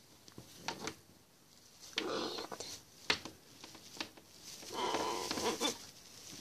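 Blue-and-gold macaw muttering to himself in two short, raspy bouts, with a few sharp clicks between them.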